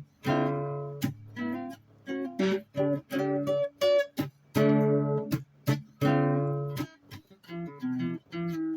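Guitar strumming chords: some chords ring for about a second, others are struck in quick, short strums and cut off.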